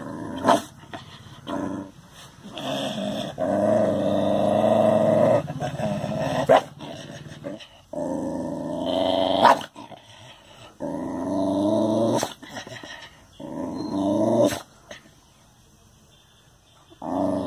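Dog growling at its own reflection: long rumbling growls, one after another, with a few short sharp barks between them. The growling dies down near the end.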